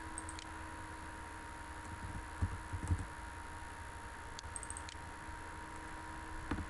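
Faint clicks of a computer mouse and keyboard while a value is set in CAD software, with a few soft low thumps about two and a half to three seconds in. A steady faint hum runs underneath.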